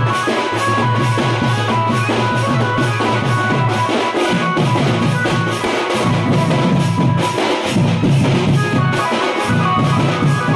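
Band party music in the khemta baja style of Koraput: a steady drum beat with a deep bass line under a melody of held notes.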